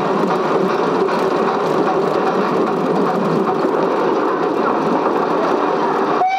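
Metre-gauge train running, a steady noise of the moving train with no distinct beat. Right at the end it cuts off suddenly and a whistle starts.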